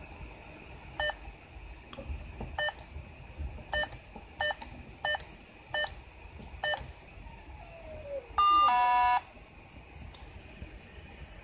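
Arduino code panel's keypad beeper giving seven short beeps, one per key press. Then comes a louder, longer two-tone beep, a higher note followed by a lower one, lasting about a second.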